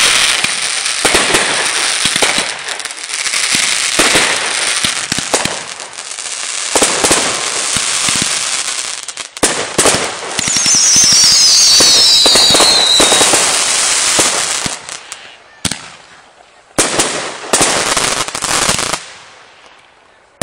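Consumer 1.4G aerial fireworks going off: dense pops and crackling that run on for about fourteen seconds, with a falling whistle a little past halfway. A few last separate bangs and crackles follow, then the sound dies away.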